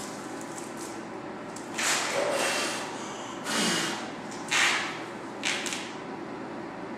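Power bank's packaging being handled and opened: four short bursts of rustling and scraping, the first and third the loudest.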